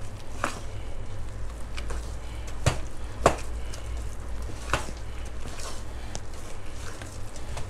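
A metal spoon stirring thick frying batter in a stainless steel bowl: irregular clinks and scrapes of the spoon against the bowl, the sharpest about three seconds in, with wet squishing of the batter. A low steady hum runs beneath.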